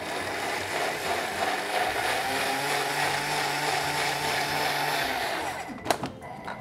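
A Thermomix food processor blending strawberries, crushed ice, yogurt and juice at high speed, a loud grinding motor noise that stops suddenly near the end. Two sharp clicks follow right after.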